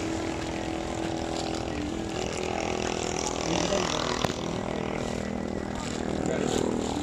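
A steady motor drone with an even hum runs throughout, under the rustle of a large canvas tent being unfolded and dragged across the ground. A single sharp click sounds about four seconds in.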